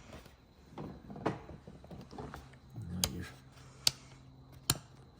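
Sharp plastic clicks, three of them a little under a second apart in the second half, after some soft handling sounds: the newly fitted heated-grip rocker switch being seated and clicked.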